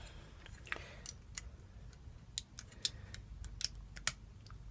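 Scattered light metallic clicks and taps, about a dozen at irregular spacing, from handling a padlock and its lock core as it is being taken apart.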